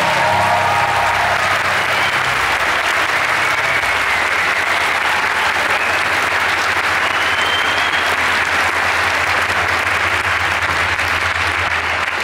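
A concert audience applauding steadily after a song ends, with a low steady hum underneath.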